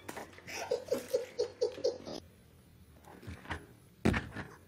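A person laughing in a quick, even run of short 'ha' sounds that stops about two seconds in. A sudden loud sound follows near the end.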